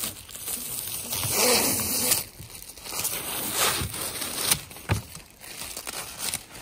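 Clear plastic protective film rustling and crinkling as it is peeled off a solar panel and bunched up by hand, in two long swishing spells with a few sharp crackles between.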